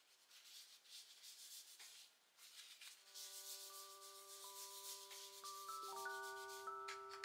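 A tissue rubbing and wiping across a desk surface, a faint dry scrubbing, as oil pastel stains are cleaned off. Soft background music with long held notes comes in about three seconds in.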